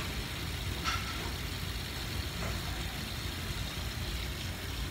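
Steady rushing background noise with a low rumble in a small bathroom, with two faint taps about a second and two and a half seconds in.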